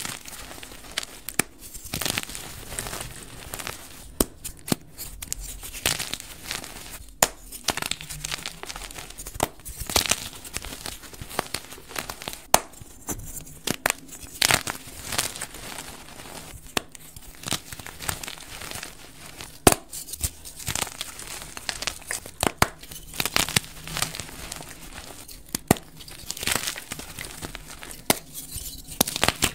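Fresh blocks of dyed gym chalk being squeezed and crumbled by hand: dry crunching and crackling, with frequent sharp snaps as pieces break off.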